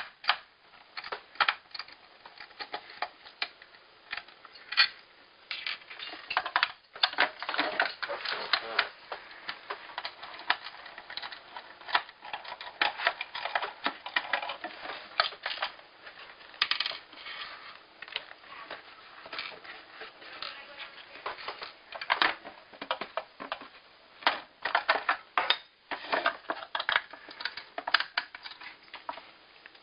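A screwdriver backing small screws out of the plastic shell of a Pinokio paintball loader: irregular clicking, scraping and rattling of the driver, screws and hard plastic shell as it is handled.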